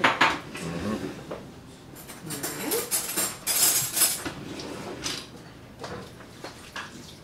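Kitchen handling sounds: dishes and utensils clinking and knocking at the counter, with a rushing noise lasting about two seconds in the middle.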